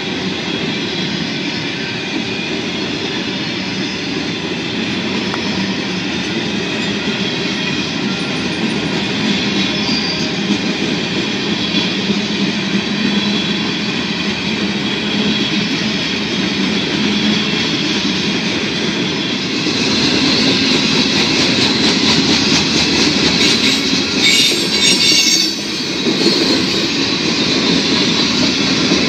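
Freight train of covered hopper cars rolling past at close range: steady steel wheels on rail with clicking from the rail joints, getting louder about two-thirds of the way through.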